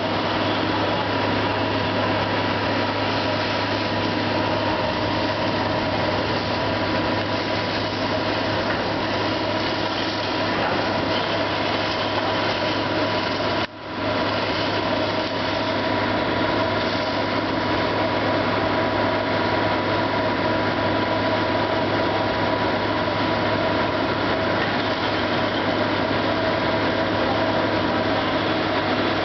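Diesel engine of a Kobelco hydraulic excavator running steadily at close range, with no sharp knocks or crashes standing out. The sound cuts out briefly about halfway through.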